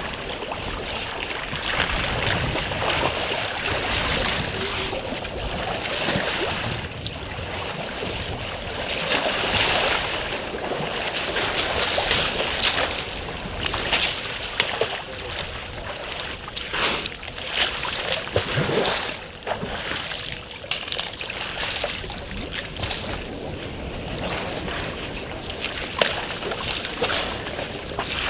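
African elephants wading in a waterhole: water sloshing, with irregular splashes throughout.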